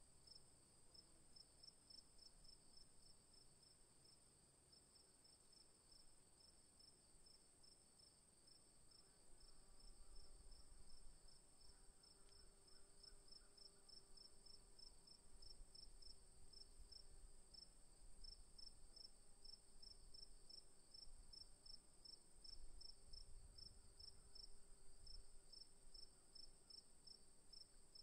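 Faint insect chorus: a steady high trill with a fast pulsed chirp, about four or five pulses a second.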